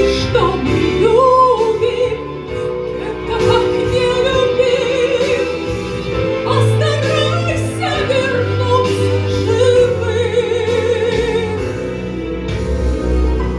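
Song: a woman's voice sings a wavering melodic line with vibrato over instrumental accompaniment with sustained low bass notes.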